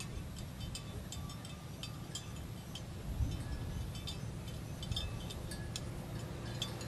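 Small bells on grazing water buffalo clinking and tinkling irregularly, a few light strikes a second, over a steady low rumble.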